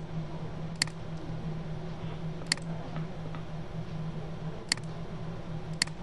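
Four sharp computer mouse clicks, spaced one to two seconds apart, over a steady low hum.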